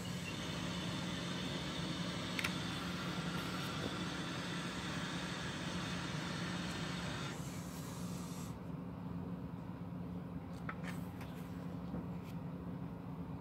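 Pages of a glossy hardcover book being turned by hand, a few short paper rustles and taps over a steady background hum and hiss. The hiss drops away partway through.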